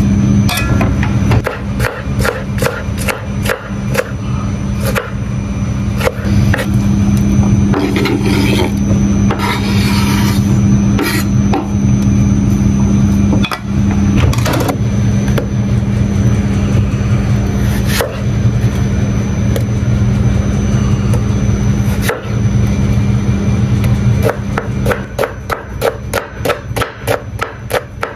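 Knife chopping on a wooden cutting board: scattered knocks at first, then quick, even chopping of about three to four strokes a second near the end. A steady low machine hum runs underneath.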